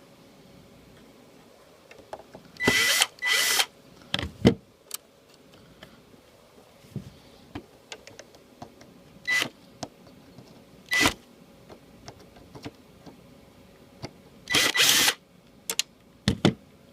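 Cordless drill-driver running in short bursts as it backs screws out of a window air conditioner's shroud, with small clicks and knocks in between.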